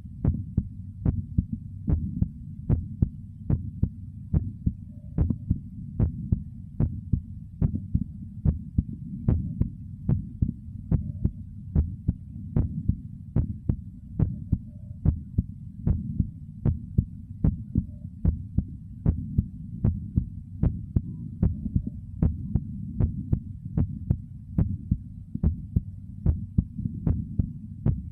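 A human heartbeat heard close up through the body: a steady beat, a little faster than one a second, over a continuous low internal rumble, with a faint gurgle of the stomach now and then.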